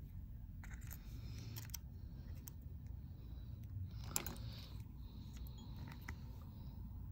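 Small, faint clicks and taps of a precision screwdriver and tiny screws being fitted back into an iPhone 12 Pro Max, with one sharper click about four seconds in, over a low steady background hum.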